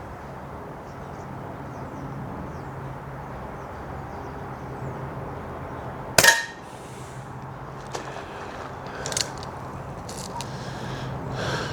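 A single sharp crack of a Snowpeak PP20 .177 regulated PCP air pistol firing a pellet, about six seconds in, followed by a few faint clicks. A low steady hum runs underneath.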